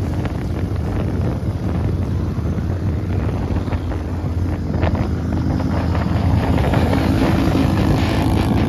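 Motorcycles running at highway cruising speed, a steady engine drone buried in heavy wind noise on the microphone.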